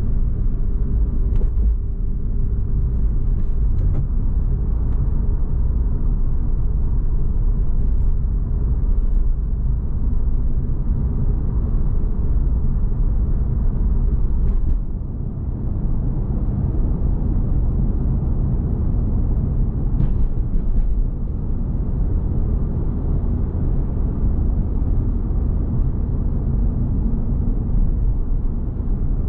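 Suzuki Swift Sport ZC32S's 1.6-litre M16A four-cylinder engine running under way with tyre and road noise, a steady low rumble heard from inside the cabin, with a brief drop in level about halfway through.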